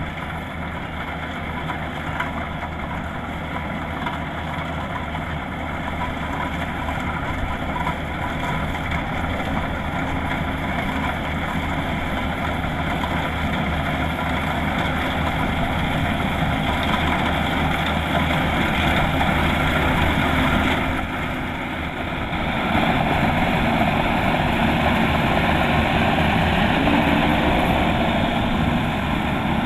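Kubota DC-105X combine harvester's diesel engine running steadily, growing gradually louder, with a brief dip about two-thirds of the way through before it comes back louder.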